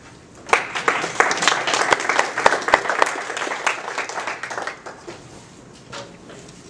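A small audience clapping, starting about half a second in and dying away after about four seconds.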